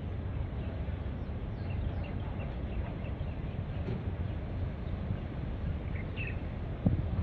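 Wind rumbling on the microphone, with a few faint short bird chirps over it and a brief thump near the end.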